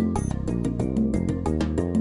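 Background music with a quick, steady beat over held notes.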